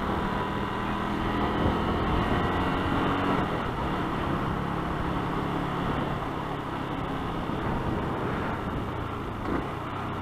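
Motorcycle engine running steadily while riding, with wind and road noise on the helmet-mounted microphone.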